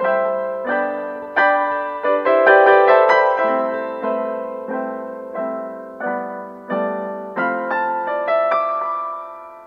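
Background piano music: chords struck about every three-quarters of a second, each note fading, the last one dying away near the end.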